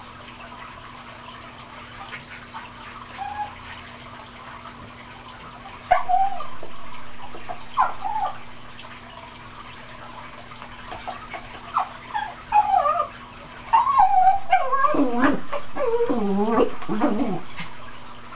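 Cairn terrier yipping and whining in excitement: a few short high yips from about six seconds in, then a longer run of whining calls that bend up and down in pitch near the end.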